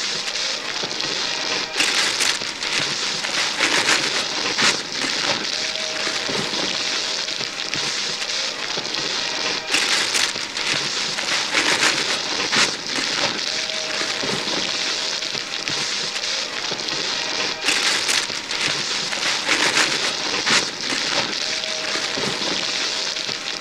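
Wrapping paper being torn and crumpled off gift boxes by several hands: continuous crackling, rustling paper with louder sharp rips, the same stretch repeating about every eight seconds.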